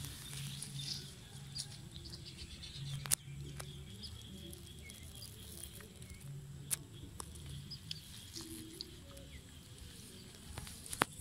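Faint outdoor background with scattered faint bird chirps, a low steady rumble and a few sharp clicks.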